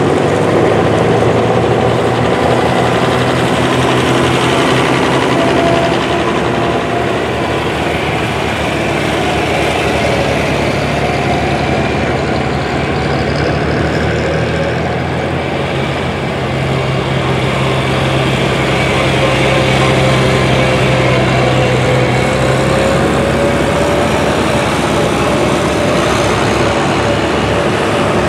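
Vintage Farmall and John Deere farm tractors driving past one after another, their engines running steadily at road speed, with engine tones shifting as each tractor passes.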